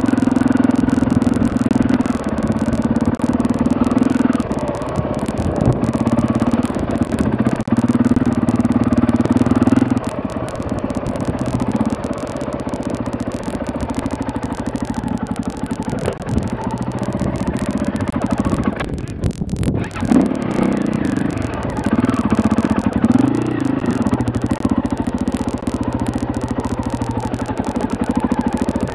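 KTM 450 EXC single-cylinder four-stroke trail bike engine running under a rider's throttle, the revs rising and falling as it picks its way along a rocky track, louder in the first third and dipping briefly about two-thirds through. Some clatter from the bike going over the stones.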